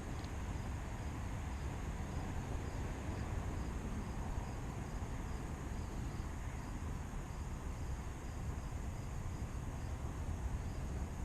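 Insect chirping in an even rhythm, about two high chirps a second, over a steady low rumble.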